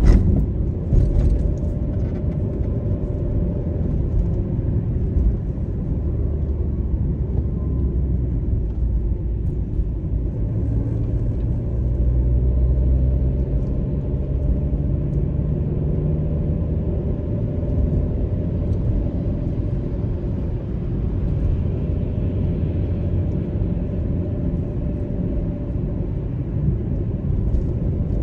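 Steady low rumble of a car driving in city traffic: engine drone and tyre noise, with a couple of brief clicks near the start.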